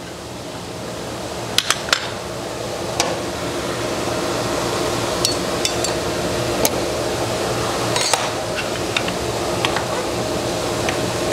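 Metal clicks and clinks as a table saw's throat-plate insert is lifted out, the blade area is handled, and the insert is set back into the table. A steady machine hum runs underneath, growing louder over the first few seconds.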